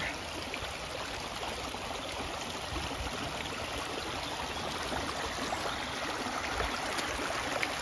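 Shallow water running fast along a narrow channel through grass, a steady rushing and burbling. It is runoff from neighbouring farmland and an overflowing aquifer.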